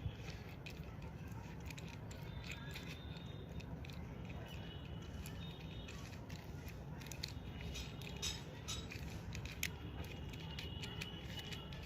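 Small non-magnetic 3×3 Rubik's cube being turned by hand, its plastic layers clicking and clacking in quick, irregular runs.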